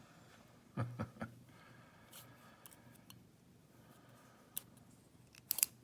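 Small metal clicks and taps from a lock cylinder being handled, a few about a second in and a quick cluster of louder ones near the end.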